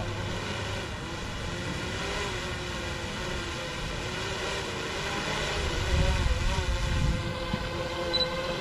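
Quadcopter drone propellers humming, a steady many-toned whine that wavers slightly in pitch, with a low rumble swelling about six to seven seconds in.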